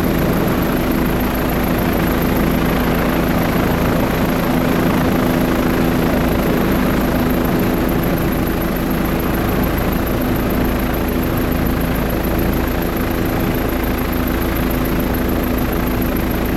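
Helicopter running steadily in flight: a loud, even engine and rotor drone with a constant low hum.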